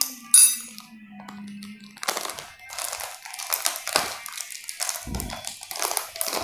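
A plastic packet of table salt being folded and rolled shut by hand, crinkling, most densely from about two seconds in. A low steady hum sounds in the first two seconds, and a dull thump comes about five seconds in.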